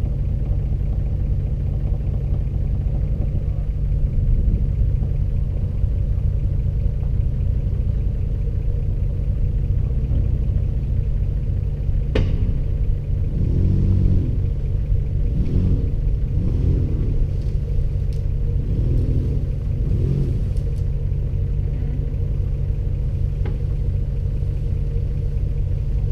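Off-road SUV engine running with a steady low rumble as the vehicle sits or crawls on a dirt trail. A sharp click about twelve seconds in, and another near the end.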